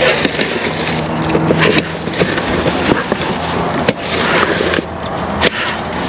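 Plastic trash bags crinkling and rustling as a reach grabber pokes and pulls through them, with scattered clicks and knocks of the grabber against things in the dumpster.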